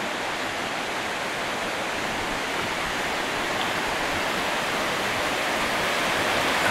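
Flood-swollen mountain stream below Torc Waterfall rushing under a bridge after a week of heavy rain: a steady, dense rush of water that grows slightly louder.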